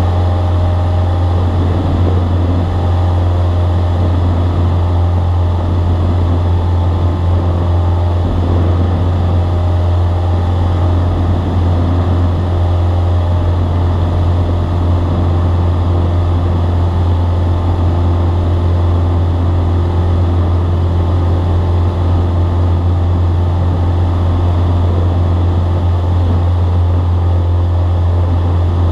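Cabin noise of a single-engine propeller plane in flight: the engine and propeller make a loud, steady drone with a strong low hum, unchanging throughout.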